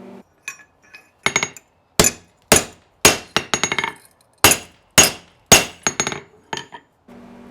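Blacksmith's hammer striking steel on an anvil: about a dozen sharp, ringing blows at an uneven pace of roughly two a second.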